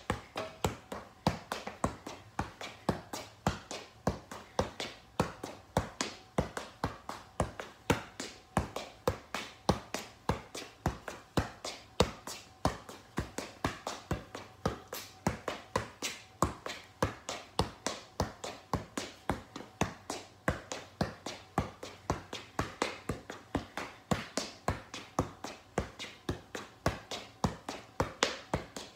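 Football being juggled: a steady run of sharp touches of the ball off the foot and thigh, about three a second, without a break.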